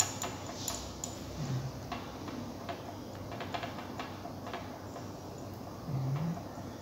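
Metal spatula clicking and scraping against a porcelain spot-plate well while iodine is stirred into olive oil: light, irregular ticks, several a second.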